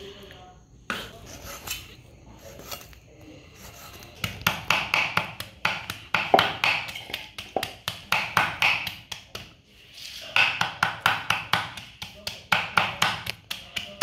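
Cleaver chopping raw pig liver on a thick round wooden chopping block. A few scattered strokes give way, about four seconds in, to fast, even chopping, which stops briefly near the ten-second mark and then resumes.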